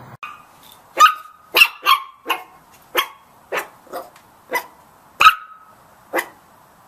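A small puppy giving about ten sharp, high barks, roughly two a second, that stop a little after six seconds in.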